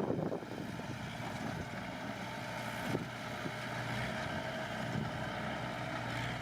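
Diesel engine of heavy earthmoving machinery running steadily, with a single knock about three seconds in.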